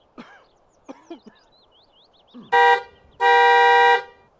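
Two-tone vehicle horn honking twice: a short toot, then a longer steady blast of about a second.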